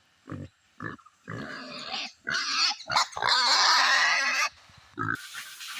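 Pigs grunting a few times, then squealing loudly in long, wavering calls for about three seconds, ending with a short grunt.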